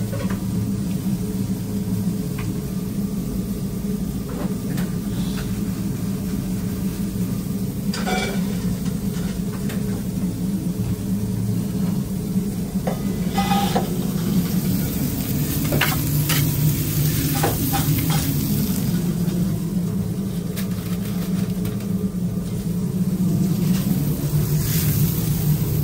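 Steady low kitchen hum with food sizzling on a flat-top griddle, and a few sharp clinks and knocks as ceramic plates and utensils are handled.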